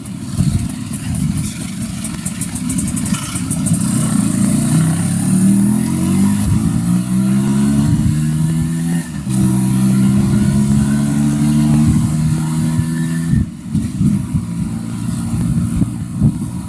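Auto-rickshaw's small single-cylinder engine heard from inside the cabin while riding: its pitch climbs as the three-wheeler picks up speed, breaks briefly about nine seconds in, then holds steady before easing off near the end.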